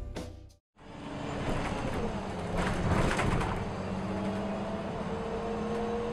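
Background music cuts off within the first second. After that comes the cabin sound of a moving city bus: steady engine and road noise, with a faint low engine hum in the second half.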